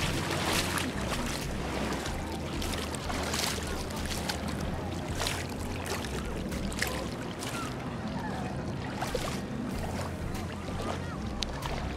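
Shallow seawater splashing and sloshing around a wading leg, with many short splashes over a steady low rumble.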